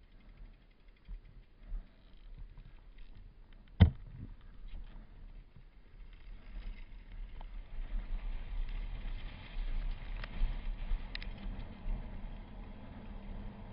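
Mountain bike riding downhill over grass and a dirt trail: a low rumble and rattle of tyres and frame, with one sharp knock about four seconds in. The rumble gets louder from about eight seconds in.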